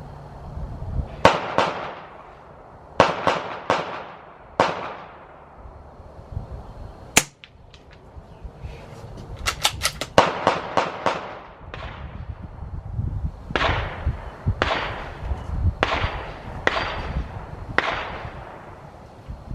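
Gunshots at a shooting range: about fifteen sharp shots at uneven intervals, with a quick string of several in under a second about ten seconds in. A low wind rumble runs underneath.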